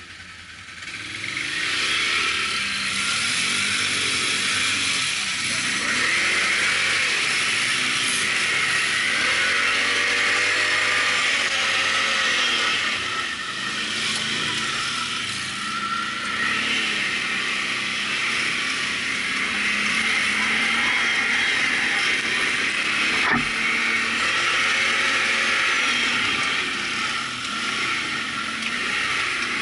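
ATV engine running while riding, revving up and down again and again over a steady hiss. The engine picks up about a second in, and there is one sharp knock about three-quarters of the way through.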